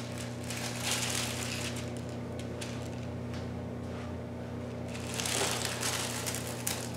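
Foil and a paper threading card rustling and crinkling as they are pulled through a foil laminator's rollers, in two spells, about a second in and again around five seconds in, over a steady low hum.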